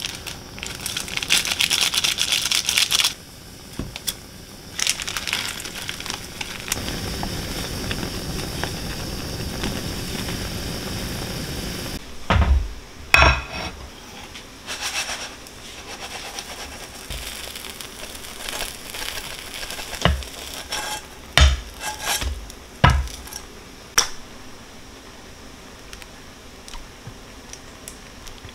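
Food sizzling and crackling in a frying pan for roughly the first twelve seconds, then a series of sharp knocks and clatters of kitchenware spread over the next dozen seconds.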